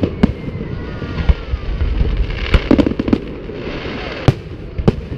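Fireworks exploding: a run of sharp bangs and crackling bursts, several close together in the middle and more near the end, over a steady low rumble.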